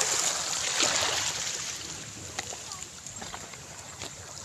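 Pebbles clicking and crunching underfoot while walking on a stony beach, over a steady hiss that is loudest in the first second or so.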